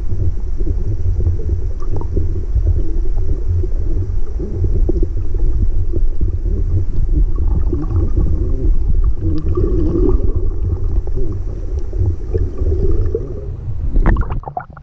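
Muffled underwater noise picked up by a camera held below the water's surface: a steady low rumble of moving water. Near the end there is a short splashing burst as the camera nears the surface.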